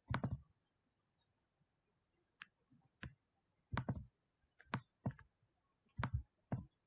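Computer mouse buttons clicking, a dozen or so sharp separate clicks, several in quick pairs like double-clicks.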